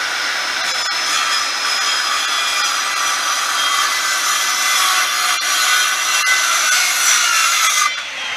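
Corded circular saw running and cutting through a wooden board: a steady high whine over the noise of the blade in the wood, which cuts off near the end.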